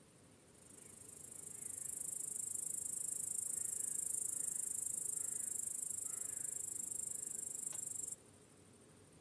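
Crickets trilling continuously at a high pitch. The trill swells in over the first couple of seconds, holds steady, then cuts off suddenly about eight seconds in.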